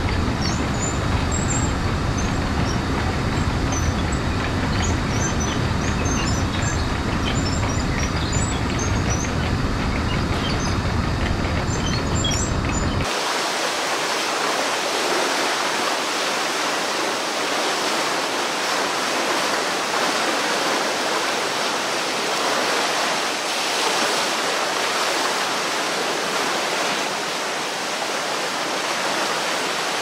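Steady rushing water of a river rapids ride. For the first 13 seconds it is a low, rumbling churn with small birds chirping over it. Then it cuts suddenly to the higher, hissing rush of whitewater pouring down the rapids channel.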